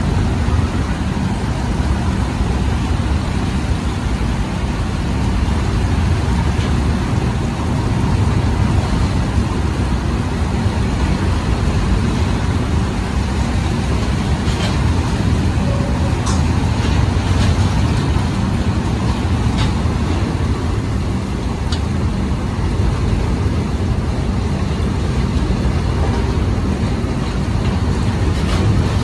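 Steady low rumble and rush of an Indian Railways goods train's covered box wagons running past close alongside, heard from a train window, with a few sharp clicks near the middle.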